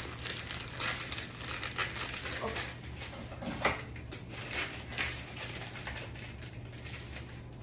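Kitchen handling noises: a plastic noodle packet crinkling, with small clicks and knocks of utensils on a counter and one sharper knock about three and a half seconds in, over a steady low hum.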